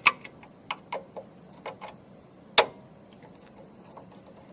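Irregular clicks and taps of a screwdriver tip working a small screw out of the drive's plastic control-board housing. The loudest click comes about two and a half seconds in, with fainter ticks after it.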